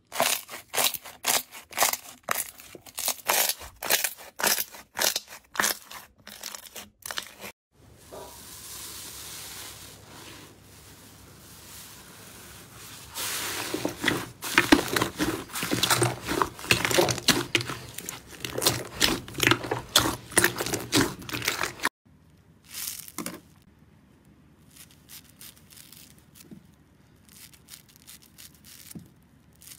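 Slime squeezed and pressed by hand: a quick run of sticky popping and crackling squishes. After about eight seconds it switches to denser, louder crackling from fluffy slime being poked. Two-thirds of the way through it drops to quieter crunchy snips of scissors cutting through a foam sponge.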